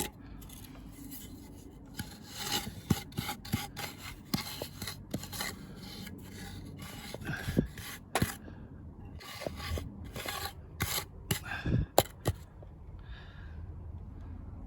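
Sand bedding for paving slabs being scraped and smoothed flat, in irregular rasping strokes with a few sharp taps.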